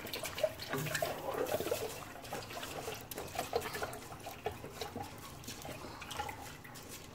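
Slotted wooden spatula stirring rice and browned vermicelli through chicken broth in a pot: liquid sloshing, with small irregular taps of the spatula against the pot.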